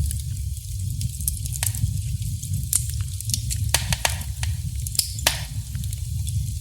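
Burning wood fire crackling: irregular sharp pops and snaps over a steady low rumble, with one broader snap about five seconds in.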